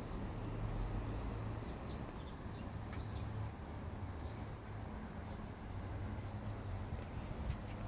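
Birds chirping in quick short calls during the first few seconds, over a steady low outdoor background hum.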